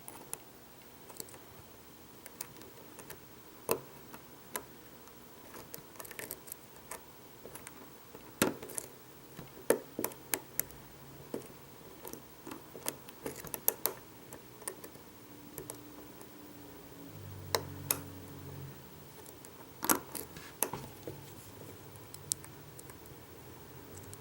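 Quiet, irregular sharp clicks, some single and some in quick runs, from a hook pick and pry-bar tension tool working the pins of a Vachette V5 pin-tumbler lock. A faint low hum comes in briefly about three-quarters of the way through.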